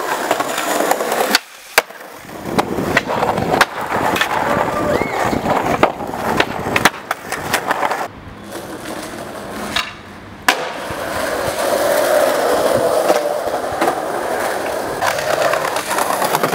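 Skateboard wheels rolling over concrete and paving, broken by several sharp clacks of the tail popping and the board landing, and by the board's trucks scraping along a stone ledge. The rolling stops and starts abruptly a few times.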